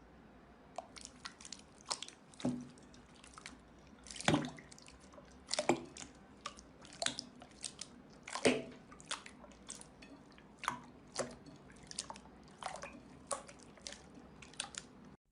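Close-miked sticky clicks and crunchy crackles from soft material being handled in an ASMR recording, uneven in pace at roughly one or two a second. The sound cuts off abruptly near the end.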